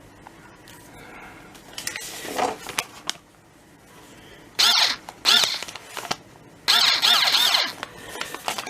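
Ryobi 4 V cordless screwdriver's motor whirring in short trigger bursts, three loud runs with a wavering whine: the tool being tried out after a bit is fitted.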